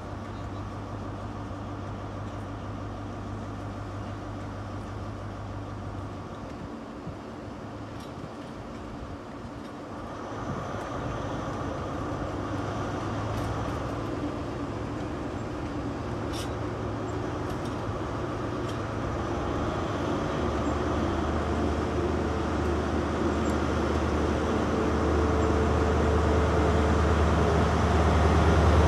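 Class 43 HST power car's MTU diesel engine ticking over at the platform, then opening up about ten seconds in as the train pulls away. The engine grows steadily louder as the power car approaches, with a rising whine near the end.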